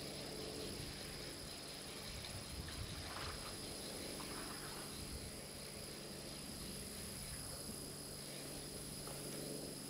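Faint outdoor ambience: a steady high-pitched insect trill over a low rumble of light wind.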